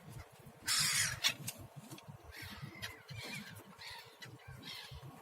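Seagulls calling: a loud, harsh screech about a second in, then a run of shorter squawking cries.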